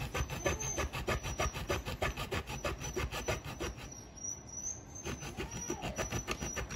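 Hand saw cutting through a motorcycle's black plastic rear fender in quick back-and-forth strokes, about three to four a second. The strokes pause briefly a little past the middle, then resume.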